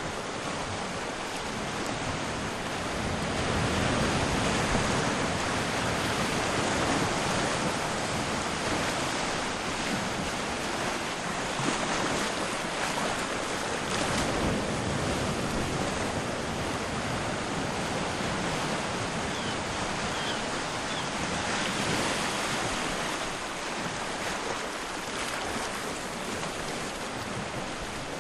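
Sea waves washing onto a shore at low tide: a continuous surf wash that slowly swells and eases.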